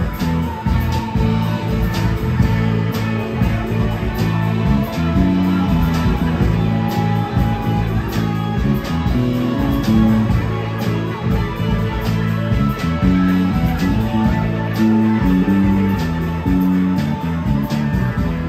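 Live rock band playing an instrumental passage with no singing: electric guitars, bass guitar and a drum kit keeping a steady beat.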